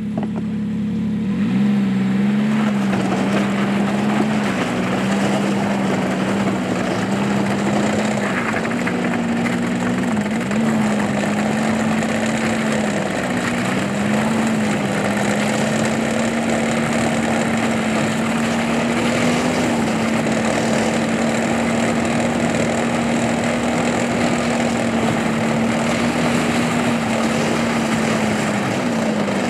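A small off-road vehicle's engine revs up about a second and a half in, then runs steadily while towing a loaded plastic sled over lake ice, its pitch dipping briefly a few times, over a steady hiss.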